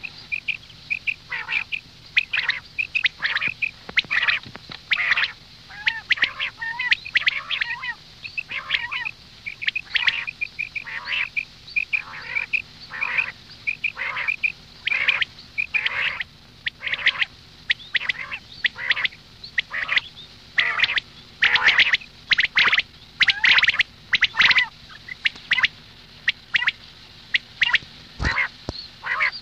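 Birds giving short calls one after another, with brief gaps between them.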